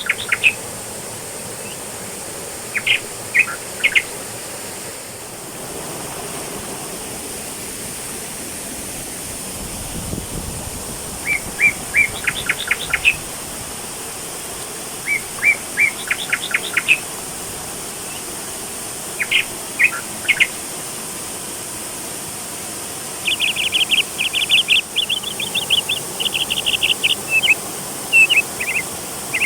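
A bird singing repeated short phrases of quick high notes every few seconds, breaking into a longer run of rapid chattering notes near the end, over the steady rush of a waterfall.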